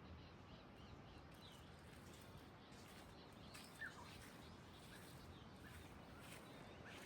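Faint bird chirps: short calls gliding up and down, several a second at times, over a quiet low background hum.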